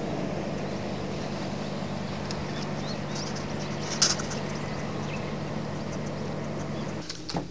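Steady engine drone, even and unchanging, that cuts off about seven seconds in, with a few faint chirps and a single sharp click about four seconds in.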